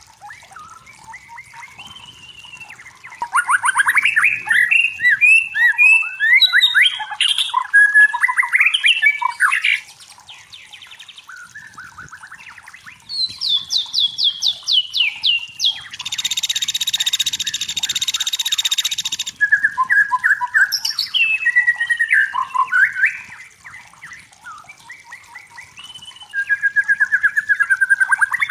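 White-rumped shama singing in loud bursts of varied whistles and rapid trills, broken by quieter gaps. Just past the middle comes a harsh, buzzing rasp lasting about three seconds.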